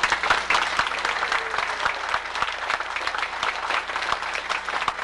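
Audience applauding, with many hands clapping in a dense, steady patter.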